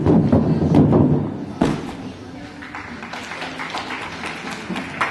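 Quick series of thuds from a gymnast striking the sprung tumbling track, ending in one louder thump about a second and a half in, with echo in a large hall. After that, a low murmur of voices.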